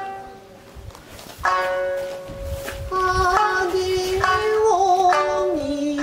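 Nagauta music: a plucked shamisen note rings out about a second and a half in after a quieter start. From about three seconds in, a voice sings in long, sliding held tones over the shamisen.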